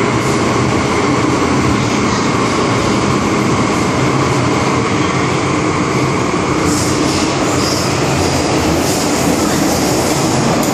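MTR M-Train electric multiple unit running between stations, heard from inside the car: a steady rumble of wheels on rail with a running hum. About two-thirds of the way through, a high wheel squeal comes in and out.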